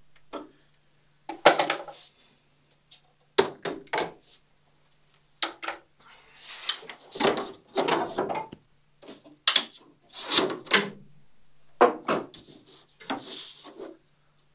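A thin plywood boat plank being handled against the wooden rib bands of a building mold: irregular knocks, taps and scrapes of wood on wood as it is pressed into place and shifted.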